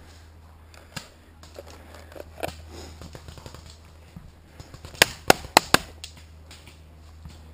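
Paintball marker firing a quick string of four shots, about four a second, about five seconds in, with a single fainter pop about a second in.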